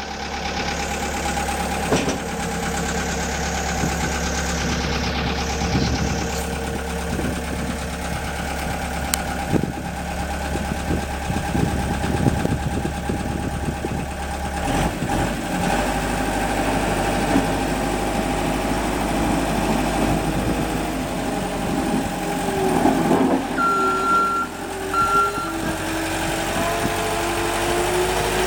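Gehl 6635 skid steer engine running steadily, with a pitch that shifts late on. Two short, high beeps sound about two-thirds of the way through.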